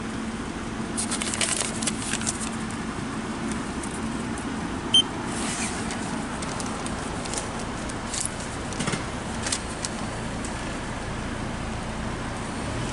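Receipt paper rustling and clicking against a car-wash payment terminal, then a single short high electronic beep about five seconds in as its barcode reader takes the wash code. A car engine idles steadily underneath.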